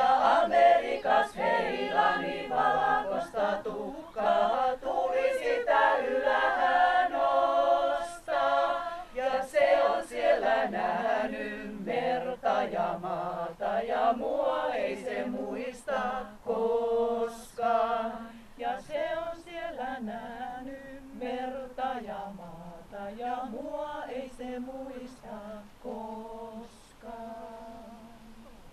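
Women's folk-song ensemble singing a cappella, a lower voice line moving beneath the higher melody. The singing grows gradually softer over the last third.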